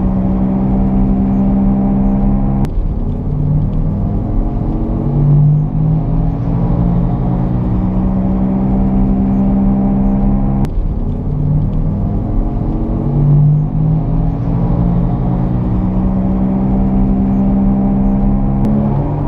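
Car driving straight with a growling noise from a wheel. A pitched hum climbs slowly and drops back suddenly twice, about 8 seconds apart.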